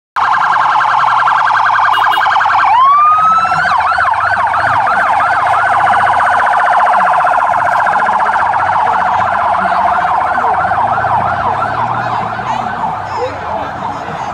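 Electronic vehicle siren on an arriving convoy car: a rapid warble at first, then a rising sweep about three seconds in, then a fast up-and-down yelp repeating two to three times a second, growing fainter near the end.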